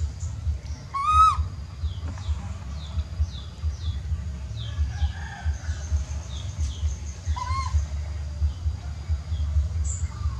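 Baby monkey crying: two short, high-pitched cries about six seconds apart, each rising and then falling in pitch. Between the cries come faint short high chirps, about two a second, over a steady low rumble.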